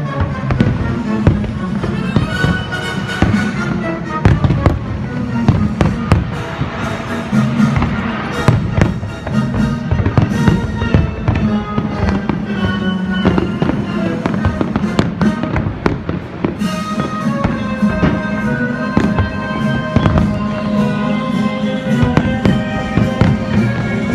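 A fireworks display bursting in rapid, overlapping bangs over show music, the bursts thickest in the middle and thinning near the end as the music comes forward.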